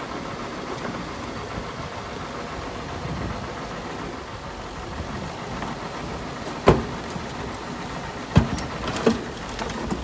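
Heavy earthmoving machinery's engine running steadily, with three sharp knocks or clanks in the last few seconds.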